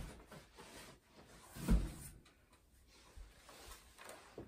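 Handling noises while unpacking a boxed prop: one dull thump a little under two seconds in, with a few light knocks and faint rustling around it.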